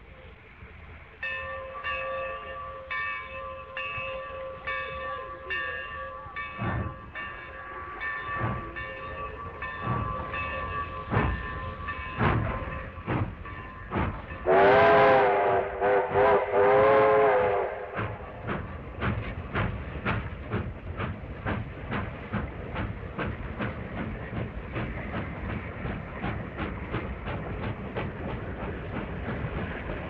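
A train passing: a bell rings at about one and a half strokes a second while the wheels knock over the rail joints. About halfway through, the train horn sounds two loud blasts, the loudest thing heard. After that the wheels clack quickly and steadily over the joints as the cars go by.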